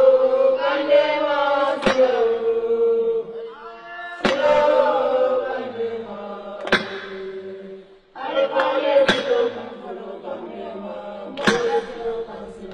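Voices chanting a song in long held phrases, with a sharp percussive hit about every two and a half seconds. The sound drops out briefly just before eight seconds in.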